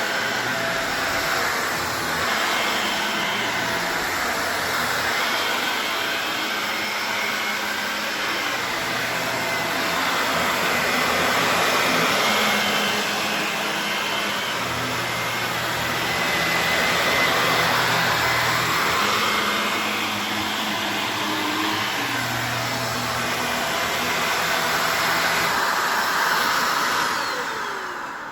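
Shark Navigator Lift-Away upright vacuum cleaner running on a deep shag rug, its motor and brush roll steady while the sound swells and eases with each push and pull. The deep pile makes it hard to push. It winds down near the end.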